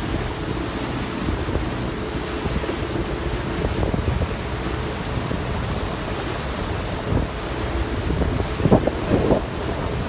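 Wind buffeting the microphone over a steady rush of sea water, with a few harder gusts near the end.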